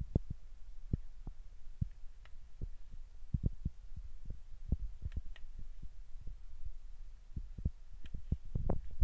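Kitchen knife cutting a raw potato into wedges on a ceramic plate: irregular dull thuds as the blade goes through the potato and knocks the plate, a few a second, over a low steady hum.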